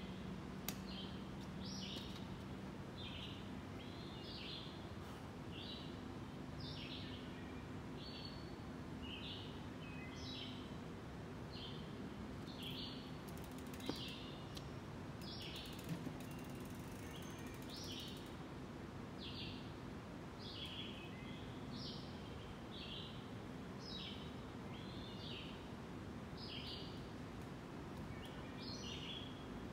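A small bird chirping over and over, short high notes about once a second, over steady outdoor background noise with a faint low hum. Two brief knocks about halfway through.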